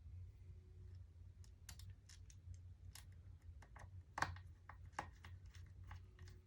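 Scattered light clicks and taps of small screws and a screwdriver against a laptop's plastic case as screws are put back in, with a louder click about four seconds in and another about five seconds in.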